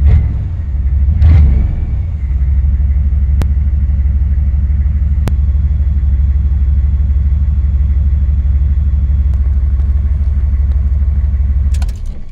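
Turbocharged 6.2L Detroit Diesel V8 in a 1982 Chevrolet K20 pickup, heard from the cab: revved briefly once about a second in, then idling steadily, and switched off near the end, starting to wind down.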